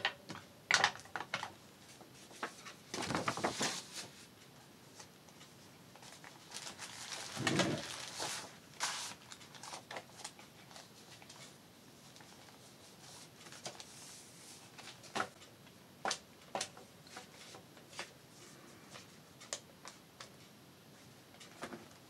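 Paper pages and a card folder being handled and rustled, with two longer rustling stretches early on and scattered light taps and clicks of tools and paper against a cutting mat.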